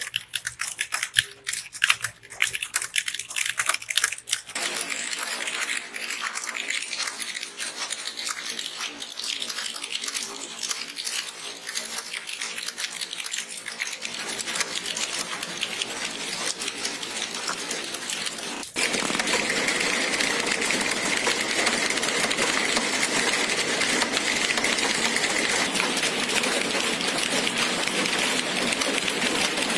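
Fast touch-typing on a TVS mechanical computer keyboard: sharp key clicks that soon run together into a dense, continuous clatter. The clatter steps up abruptly to a louder, more even level about two-thirds of the way through.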